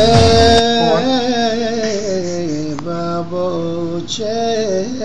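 Band music with bass cuts off about half a second in, and a man's voice carries on singing unaccompanied in Arabic folk style. He holds long notes with a wavering, sliding pitch.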